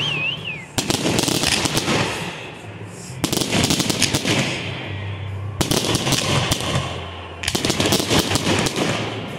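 Fireworks display: volleys of rapid crackling bangs as aerial shells and cake effects burst, coming in several waves a second or two apart. A short wavering whistle sounds right at the start.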